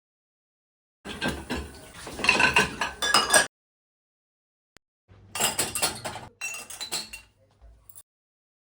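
Dishes and cutlery clinking and knocking as tableware is handled and set down, in two stretches of about two and three seconds that start and stop abruptly.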